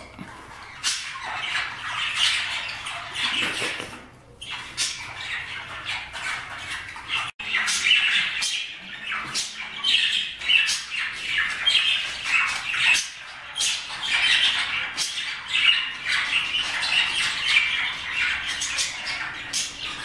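Budgerigars chattering with rapid squawks and chirps, broken off briefly about seven seconds in.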